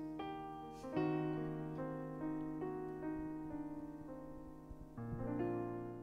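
Piano playing the slow closing bars of a ballad: soft chords and single notes, ending on a final chord struck about five seconds in and left to ring.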